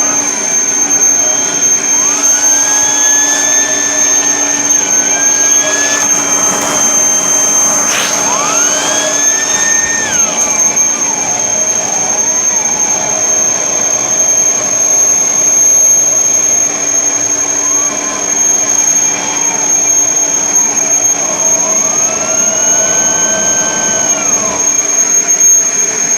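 Kirby Sentria upright vacuum running on a bed: a steady high whine over a lower hum, with the pitch rising and falling several times as the nozzle drags over the sheets. The sheets bunching under the nozzle are holding back the brush roll from spinning at full speed.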